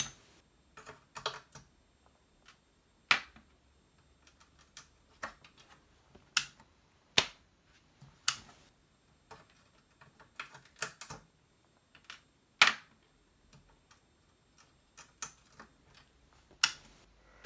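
A dozen or so separate sharp clicks and taps from handling the computer's RAM chips: DIP chips being pulled from and pressed into their sockets on the Apple II Plus motherboard and set down on the wooden desk, with the power switch flipped about halfway through. A few of the clicks are much louder than the rest.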